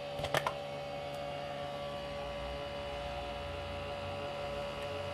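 Hamlet 3D printer running while it heats up, its fans giving a steady hum with several whining tones. A few sharp clicks come about half a second in, and a lower hum joins about halfway through.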